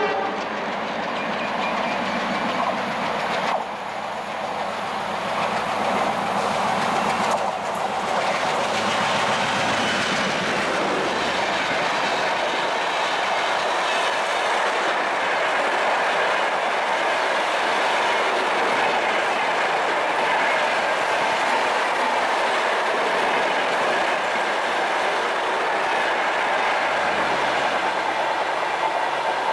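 WDM-3A diesel-electric locomotive running hard as it approaches at speed, then its passenger coaches rushing past close by: a steady roar of wheels on rail with clickety-clack over the rail joints.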